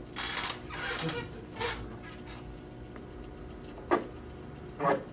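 Police station office room tone: a steady electrical hum under a few brief rustling noises in the first second or two, then two sharp clacks about a second apart near the end.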